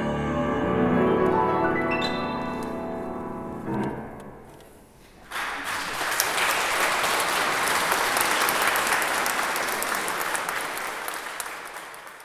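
A choir and grand piano hold a final chord, with a last chord struck about four seconds in that rings away. About five seconds in an audience breaks into applause, which fades out near the end.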